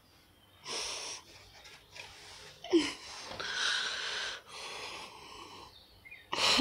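A frightened kitten hissing in several airy bursts: a short hiss about a second in, a long one from about three to four and a half seconds, and a softer one after it, with a short low note just before the long hiss.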